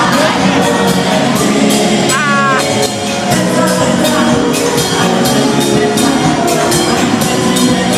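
Live gospel band playing loud amplified music with a steady drum beat, with a brief wavering high note about two seconds in.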